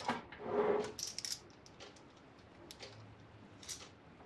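Light metallic clicks and scrapes from the Cisco 1841 router's sheet-metal cover being slid into place on the chassis, mostly in the first second or so, then a few faint taps.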